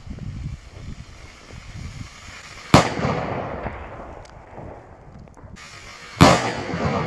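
Two loud bangs from Category F4 firecrackers, the first about three seconds in and the second about three and a half seconds later. Each is followed by a rolling echo that dies away.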